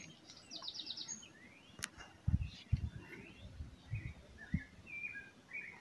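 Faint birdsong: a quick trill of short high notes near the start, then scattered short chirps and whistles, with a few soft low thumps in the middle.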